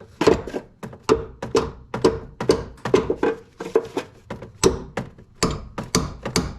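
A wrench on a stuck 18 mm power steering line fitting being tapped over and over, to shock the fitting loose: a steady run of sharp metallic knocks, about two a second, each ringing briefly.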